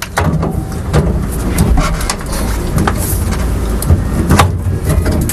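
Stock car engine running at idle, a loud steady rumble heard from inside the cockpit, with short knocks and rattles on top.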